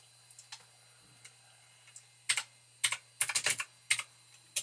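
Typing on a computer keyboard: after a few faint clicks, a quick run of about eight sharp key presses starts about two seconds in.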